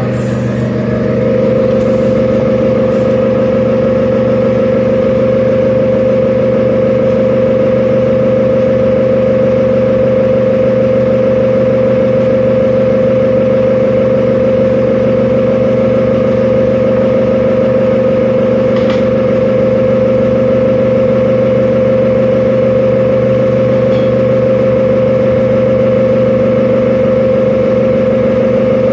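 Kitchen range hood extractor fan running steadily: a constant mechanical hum with one strong steady tone, a little louder from about a second in.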